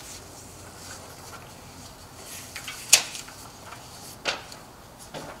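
Quiet room tone broken by a few short, sharp taps, the loudest about three seconds in and a second one about a second later.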